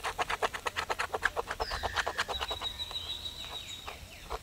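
Birds calling: a fast, even run of short notes, about eight a second, that stops a little past halfway. High, downward-sliding whistled calls follow.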